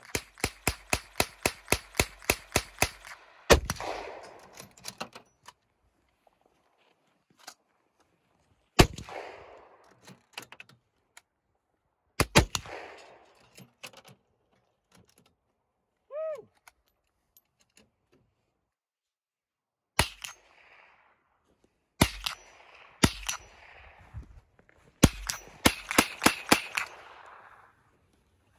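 Rifle gunfire. A fast string of about twenty shots, roughly six a second, runs through the first three seconds. Single shots with echoing tails follow every few seconds, and another rapid string comes near the end.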